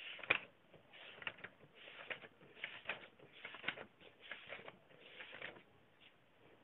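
Faint rustling and scraping, a short soft scrape roughly every three quarters of a second, stopping about five and a half seconds in.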